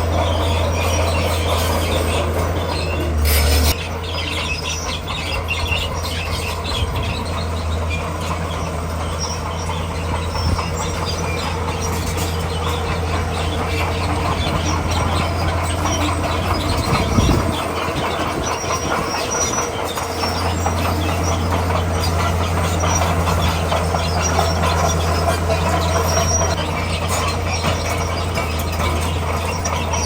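Komatsu D41P crawler bulldozer working: its diesel engine drones steadily while its steel tracks clank and squeal as it pushes rock. The engine note eases for a few seconds just past the middle, then picks up again.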